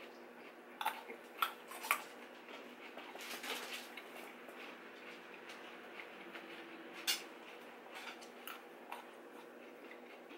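Close-miked eating: crisp crunches and mouth clicks from chewing raw carrots and fried onion rings, scattered and irregular, over a faint steady hum.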